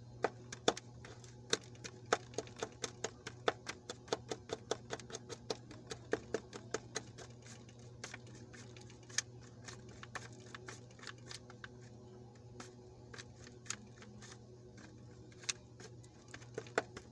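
Metal spoon clicking and scraping against a stainless steel bowl as mashed sardines are mixed: rapid irregular clinks, thick for the first half and sparser later, over a faint steady low hum.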